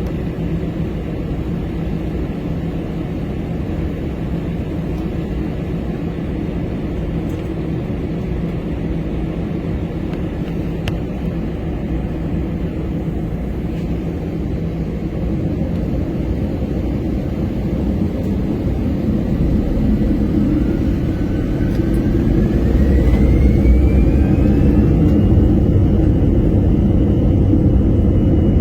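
Airbus A321 heard from inside the cabin: a steady low jet-engine rumble. About three-quarters of the way through, a whine rises in pitch for a few seconds and then holds, and the rumble grows louder as the engines spool up toward takeoff thrust.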